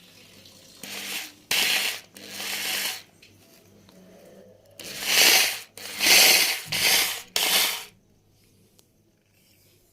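A 1050-watt electric hammer drill being switched on and off in short bursts, each under a second, in two groups: about three bursts, a pause, then about four more, stopping about eight seconds in. This is a quick test that the drill runs on the live supply.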